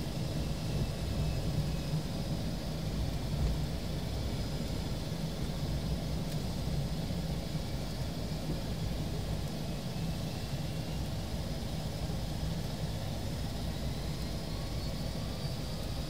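Aircraft engines running steadily during taxiing: an even low rumble with a faint high whine on top.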